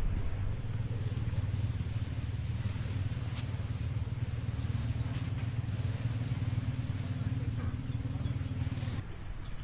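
An engine running steadily with a low hum, which cuts off suddenly near the end.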